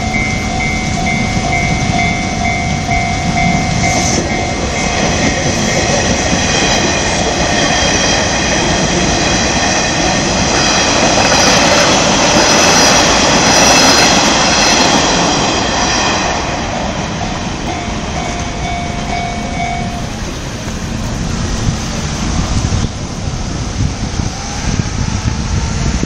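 Two Nishitetsu electric trains, an 8000 series and a 5000 series, passing each other through a level crossing: a rushing rumble of wheels on rails with a high whine, loudest in the middle and fading after. A level-crossing warning bell rings at the start and again briefly near the end.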